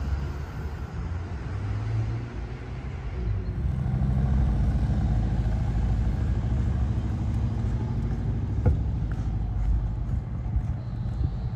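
Road traffic: a motor vehicle engine running along the street, growing louder about three and a half seconds in and then holding steady. A single sharp click about nine seconds in.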